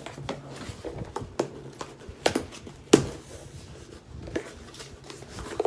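Hands handling and opening a shipping package: scattered sharp taps and clicks with light rustling, the loudest about three seconds in.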